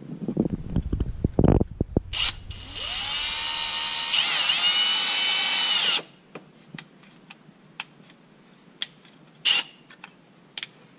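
Power drill enlarging the holes in the winch wiring harness's end terminals so they fit over the battery bolts. Handling clatter, then the drill spins up and runs steadily for about three and a half seconds, its pitch dipping briefly as the bit bites, before cutting off. Light clicks and taps follow.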